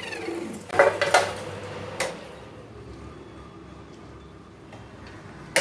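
A falling whine dies away at the start, then the parted-off steel workpiece gives two ringing metallic clanks about a second in, and a click a second later. A lighter click follows near the end.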